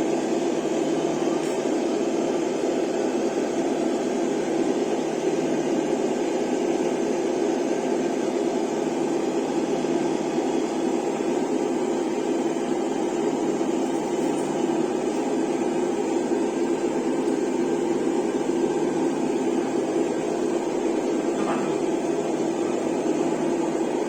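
RC truck engine-sound module playing a simulated diesel engine idling steadily through its small speaker.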